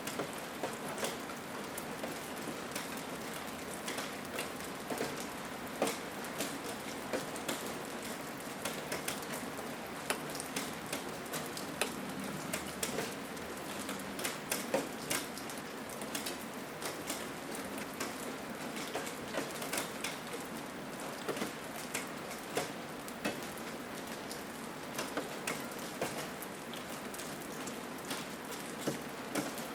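Steady rain, an even hiss dotted with many irregular sharp drop hits.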